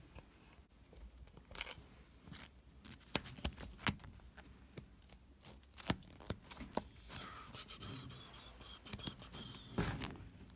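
Paper file folders being flipped through by hand in a metal filing cabinet drawer: scattered soft clicks, taps and paper rustles, with a faint high thin tone for about three seconds in the second half.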